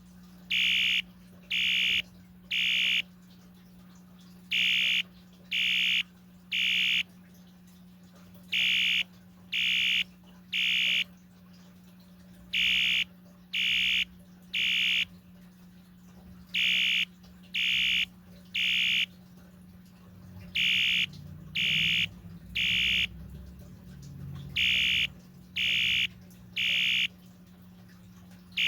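Mid-1980s Wheelock ES-DL1-WS-24DC electronic fire alarm horn sounding in temporal-3 code: groups of three short, high-pitched blasts about half a second each, a new group roughly every four seconds, seven groups in all.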